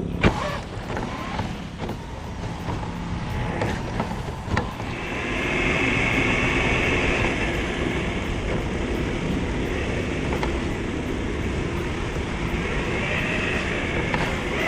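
Tamiya Lunchbox RC car driving over rough ground, with a steady rumble throughout and a few knocks in the first five seconds. Its electric motor whines under throttle from about five seconds in and again near the end.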